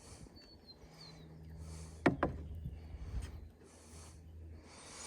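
Quiet outdoor background with a brief high bird chirp near the start and a few soft hissing swells; two sharp clicks a fraction of a second apart about two seconds in are the loudest sounds.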